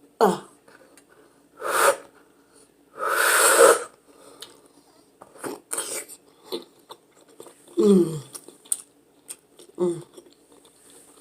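A man eating boiled eggs without using his hands: wet chewing and mouth clicks, short grunts, and a forceful, breathy blast of air about three seconds in as he struggles to get the egg down.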